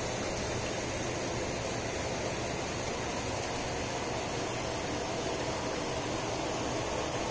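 Steady rain falling, a constant even hiss.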